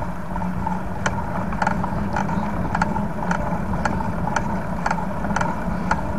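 Steady rumble of a bicycle ride picked up by an action camera, tyre and wind noise, with a light click repeating about twice a second.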